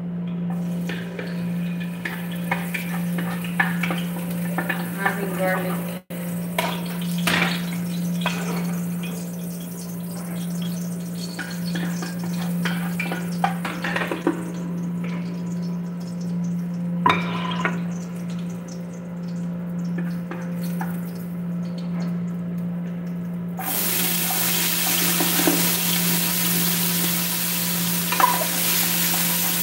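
Food frying in a large aluminium pot on a gas burner, with a utensil stirring and knocking against the pot. About three-quarters of the way through, the sizzle suddenly becomes much louder and hissier as more food is tipped in from a plate. A steady low hum runs underneath.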